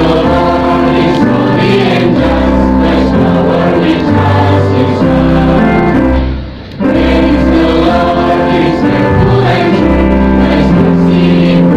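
Music: choral singing over sustained chords and a bass line, with a brief drop-out about six and a half seconds in.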